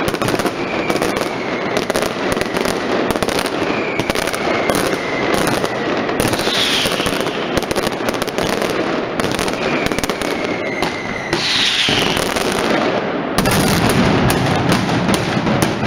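Mascletà firecrackers going off in a dense, rapid barrage of bangs, with several whistling fireworks gliding down in pitch. Near the end the barrage grows louder and deeper.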